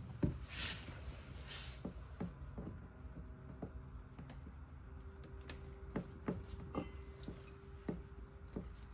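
Faint, scattered small clicks and light knocks of a gear-lube pump's hose fitting being handled and fitted into the bottom drain hole of an outboard's lower unit.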